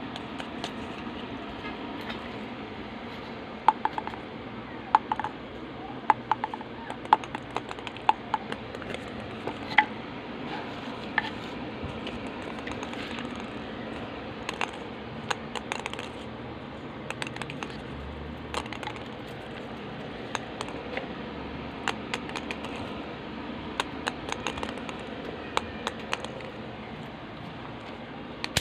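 Plastic table tennis balls handled by hand, giving a string of short, light, sharp clicks and taps as they knock together and against the paddles and surface. The loudest clicks come in the first ten seconds, with fainter, sparser ones after, over a steady hiss.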